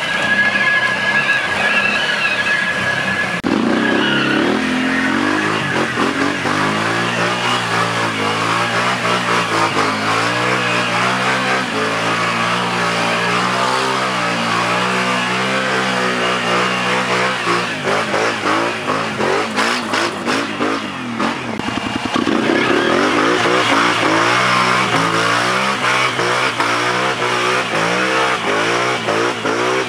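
ATV engine revving up and down under load for the whole stretch, with its pitch rising and falling as the throttle is worked, briefly dropping off around twenty seconds in before climbing again.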